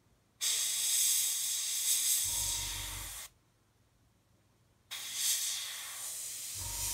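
Airbrush spraying thinned white paint in two bursts of hiss, each about three seconds long, with a low buzz joining near the end of each burst.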